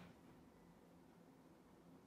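Near silence: room tone with a faint hum.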